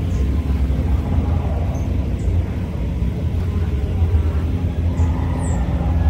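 Honeybee buzzing in flight close by, a steady hum that fades for a few seconds and comes back strongly about four and a half seconds in, over a low rumble.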